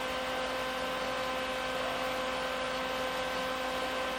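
Steady machine hum with a light hiss, unchanging throughout.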